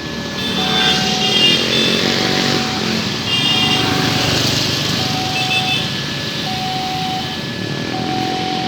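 Electronic warning siren of a railway level crossing, sounding a short steady tone over and over, about once every 1.2 seconds, over a loud steady rumble that swells about a second in.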